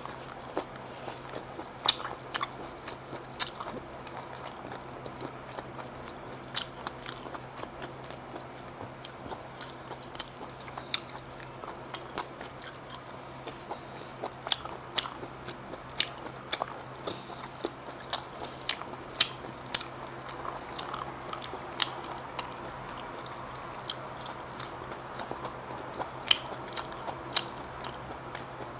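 Close-miked eating of seasoned shellfish and sea snails: chewing and biting, with many sharp, irregular clicks and smacks throughout, over a faint low steady hum.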